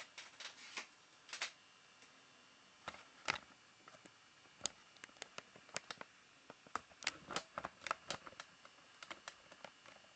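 Irregular light clicks, taps and short scrapes from small parts and tools being handled, with no steady rhythm.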